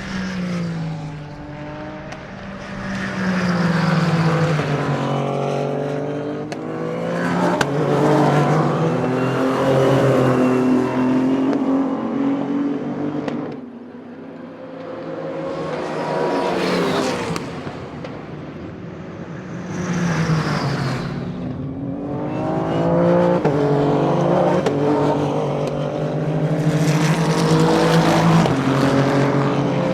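Endurance race cars passing one after another at full speed, about six swells in all, their engines climbing through the gears and dropping in pitch as each car goes by.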